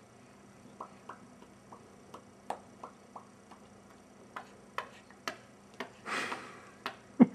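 A series of short mouth pops, a dozen or so sharp clicks at irregular spacing, with a breathy rush about six seconds in and the loudest pop near the end.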